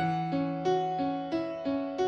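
Background music: a keyboard instrument playing a repeating pattern of struck notes, about three a second, over a held low note.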